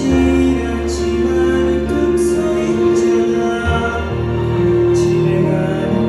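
A man singing a song live into a microphone over instrumental accompaniment with deep bass notes, holding long notes.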